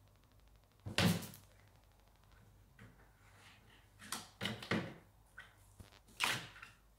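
Thumps and knocks against the trash bin as the cat toy is worked inside it: one loud knock about a second in, three quicker ones around four to five seconds, and another just past six.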